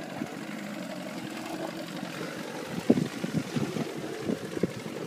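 Steady low hum on a small boat, with wind on the microphone. About three seconds in, a run of irregular knocks and thumps starts, as the hooked fish is brought to the side of the boat.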